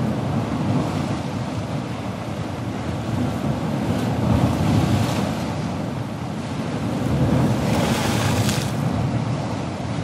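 Ocean surf breaking: a steady low rumble of the sea, swelling twice into louder rushes of hissing water, about four seconds in and again around eight seconds.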